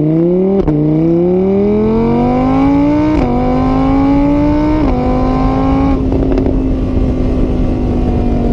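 Car engine accelerating up through the gears. Its pitch climbs, drops sharply at three gear changes, then holds nearly steady as the car cruises.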